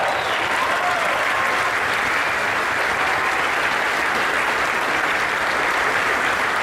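Audience applauding steadily: a crowd clapping continuously at an even level.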